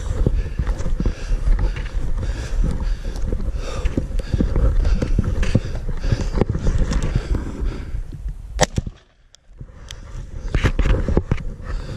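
Handling and movement noise from a chest-mounted camera on a plate carrier as the wearer moves over rough ground: a steady rumble of rubbing with many rapid clicks and knocks. It drops away briefly about nine seconds in, then resumes.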